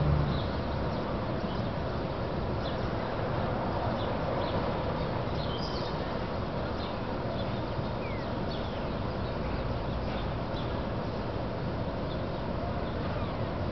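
Small birds chirping in short, scattered calls over a steady background hum of city traffic.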